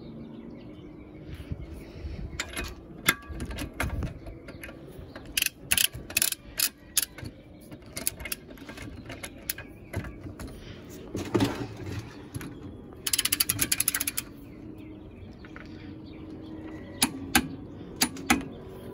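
Hand tools being handled: scattered metal clicks and knocks, with a louder clunk. About two-thirds of the way through comes a quick even run of about a dozen ratchet clicks, the ratchet head of a torque wrench being worked.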